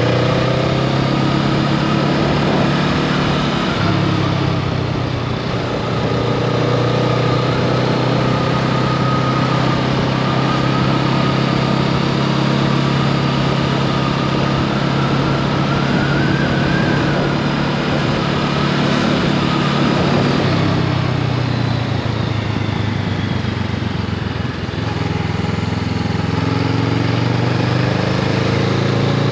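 Honda Rebel 500's parallel-twin engine running steadily under way, its note shifting a few times with throttle and gears, over a steady rush of wind noise.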